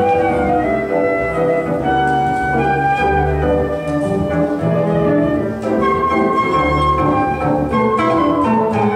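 Live jazz band: a flute plays the melody in held, moving notes over an upright bass line and band accompaniment.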